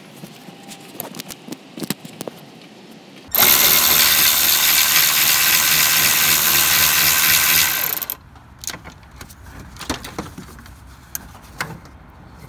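Power impact gun running for about four and a half seconds on a small bolt, starting about three seconds in and cutting off. Light clinks and knocks of tools and parts are heard before and after it.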